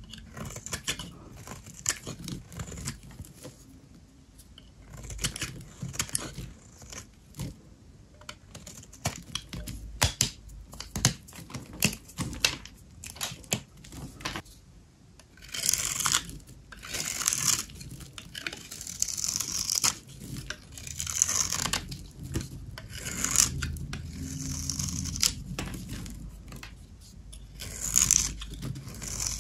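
Blade cutting dry soap: many crisp snapping cuts, then from about halfway a run of longer scraping, crumbling strokes about a second each.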